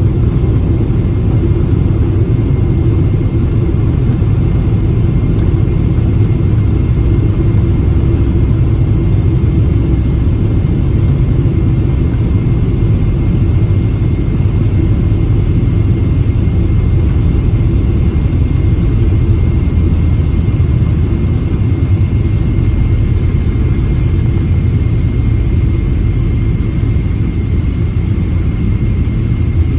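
Steady low rumble inside the cabin of a Boeing 777-300ER from its engines and airframe, with a faint thin whine above it.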